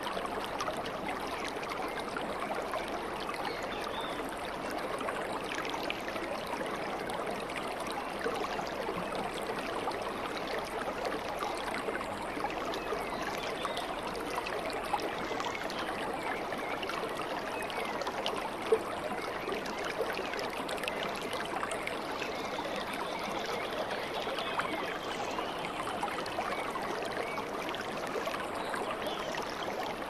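Small waterfall cascading over rock ledges into a pool: steady rushing and splashing of running water. A single short click sounds a little past halfway.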